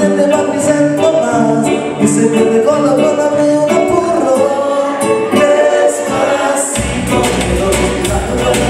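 Live band performing a song: several male voices singing together over keyboard and electric guitar. A deep bass line comes in about seven seconds in, filling out the sound.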